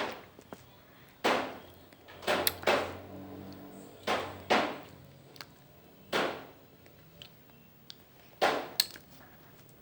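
Close-miked eating of a vanilla Cornetto ice cream cone: about nine short bites and mouth sounds, some in quick pairs, each fading fast.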